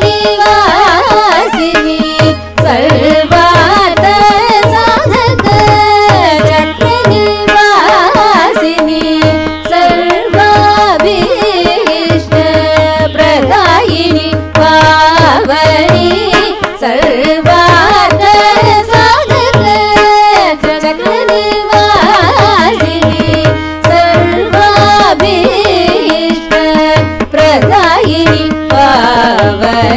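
Carnatic music in raga Bhairavi: two women's voices singing in gliding, ornamented lines with violin accompaniment, a tambura drone and steady mridangam strokes.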